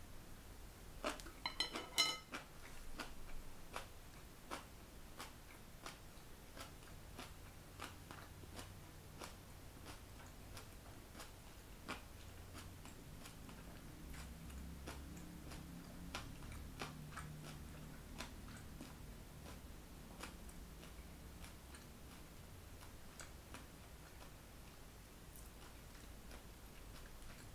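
Faint, steady ticking, about one and a half ticks a second, throughout. About one to two seconds in, a short clatter of clicks with a brief ringing as wooden chopsticks are set down on a ceramic bowl. A faint low hum around the middle.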